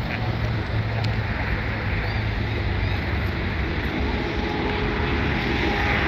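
A steady engine drone with a low rumble, growing louder near the end.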